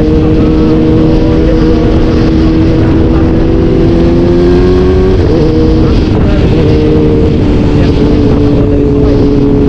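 Vehicle engine running hard and loud. Its pitch climbs slowly, breaks about five seconds in, then holds steady.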